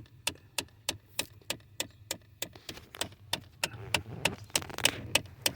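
Rapid, even ticking from a 2017 Ford Expedition's HVAC blend door actuator, about three clicks a second, set off by opening a door: a faulty actuator, which the owner found to be the cause of the tick.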